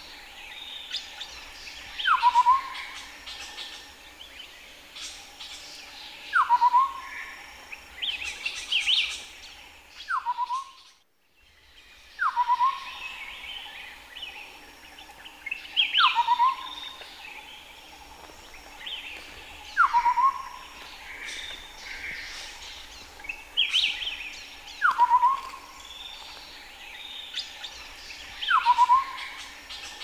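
Chestnut-headed partridge calling, one call repeated about every four seconds: a falling whistle followed by a quick run of short notes, with fainter chirping from other birds higher up.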